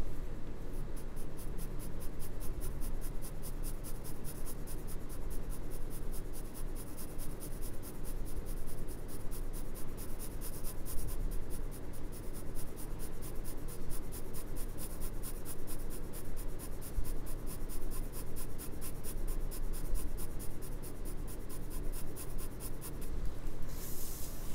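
Graphite pencil scratching on drawing paper in quick, even shading strokes, several a second, that stop shortly before the end, followed by a brief rustle.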